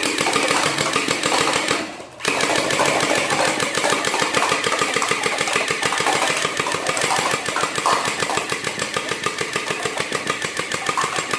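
Battery-powered toy gun firing continuously: a fast, even rattle, with a short break about two seconds in.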